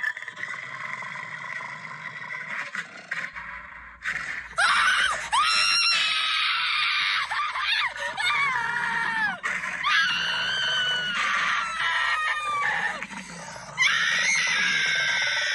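Repeated high-pitched screaming, starting about four seconds in: several long cries, each jumping up and then sliding down in pitch, after a softer rough noise at the start.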